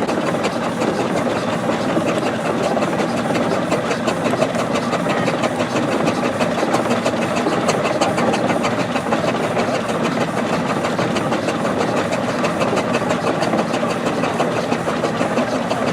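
An engine running steadily close by, with a fast, even beat.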